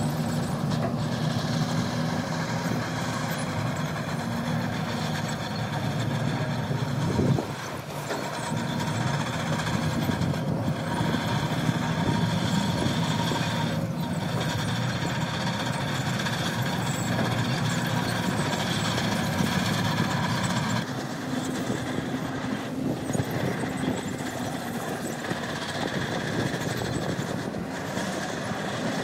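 Heavy diesel engine running steadily with a high whine over it. The engine note shifts a little about 7 seconds in and changes abruptly about 21 seconds in.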